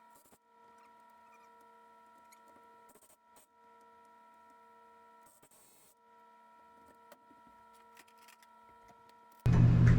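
Near silence with a faint steady hum and a few small clicks. About nine and a half seconds in, a loud low hum starts abruptly.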